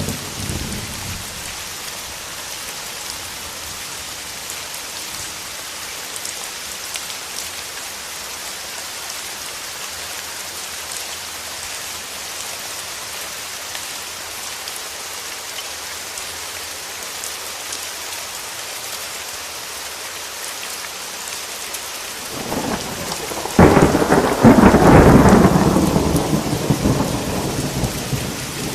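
Steady heavy rain falling. About three-quarters of the way through, a thunderclap builds, cracks sharply and rumbles away over a few seconds.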